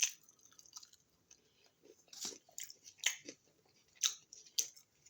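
A person chewing crunchy food close to the microphone, with sharp crunches about once a second.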